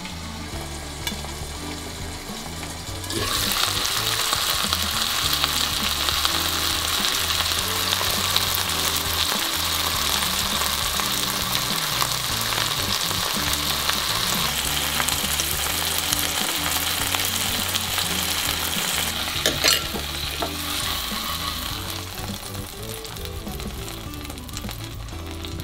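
Chicken thigh frying in oil in a nonstick frying pan: a loud, dense sizzle that starts abruptly about three seconds in and eases off near the end. A single sharp knock about twenty seconds in.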